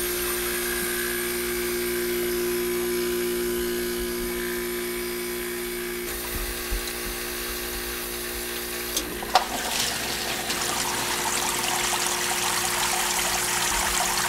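Hoshizaki KM-630MWB commercial ice maker humming steadily near the end of its defrost cycle. About nine seconds in the hum drops away with a sharp click as the machine switches over and its water pump comes on. Water then starts trickling and splashing over the evaporator plates.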